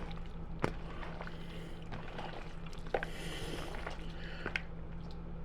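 A few faint soft, wet clicks and squishes from food being handled or eaten, over a steady low electrical hum.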